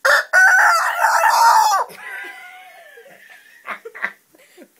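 Rooster crowing loudly for about two seconds, the call wobbling and breaking up as the bird is shaken while it crows, then trailing off into a fainter drawn-out end.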